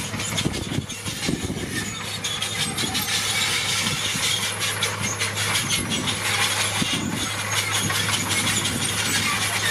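Heavy diesel earthmoving machinery working: a steady low engine hum under a dense, continuous rattling and scraping of metal and gravel, getting a little louder after the first couple of seconds.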